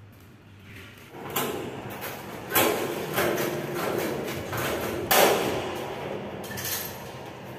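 Irregular knocks, bangs and rattling from work on tubular metal toilet-partition frames, with a few louder bangs in the middle.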